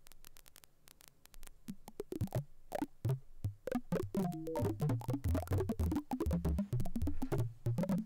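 Raw dust noise from the particle noise model of a Beehive Eurorack oscillator, a Mutable Instruments Plaits clone. It is a stream of random clicks and crackles, sparse at first and growing much denser from about two seconds in, with some low pitched pops mixed in.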